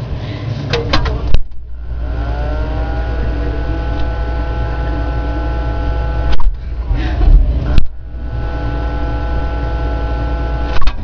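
A small electric motor spins up with a rising whine and runs steadily for about five seconds, stops with a few clicks, then starts again and runs for about three more seconds.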